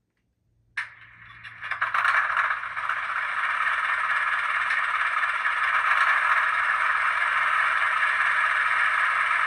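HO-scale GE 44-tonner model locomotive's DCC sound decoder playing its diesel engine sound through a tiny onboard speaker. The sound is thin, without deep bass. It starts suddenly after a moment of silence and builds to a steady run within a second or so.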